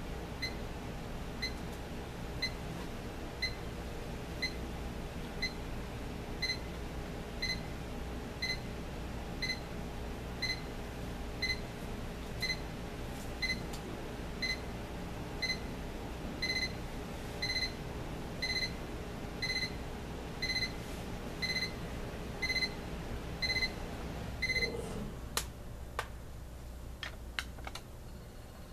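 Ken-Tech T-4652 digital alarm clock's alarm sounding: short high electronic beeps about once a second, which become longer and louder about halfway through, then stop near the end. A few sharp clicks follow.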